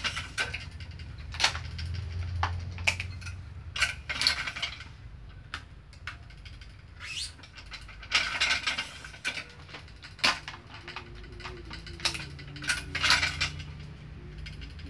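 Badminton racket being strung on a stringing machine: the string is pulled through the frame in several short hissing swishes, between sharp metallic clicks from the machine's clamps and tensioner as each string is tensioned one at a time.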